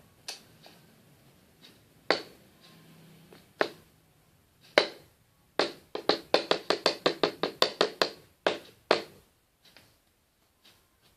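Hard taps and knocks from slime ingredients being mixed in a container: a few single hits, then a quick run of about five clicks a second in the middle.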